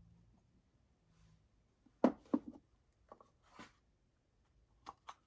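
Hand tools being handled on a workbench: a few sharp knocks about two seconds in as a metal micrometer is set down and a wooden instrument case picked up, a brief scrape, then two quick clicks near the end as the wooden case is handled.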